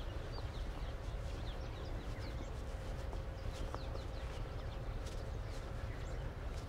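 Outdoor ambience of many small birds chirping in short, quick, downward-sliding notes, over a steady low rumble of wind on the microphone. A faint steady hum runs underneath.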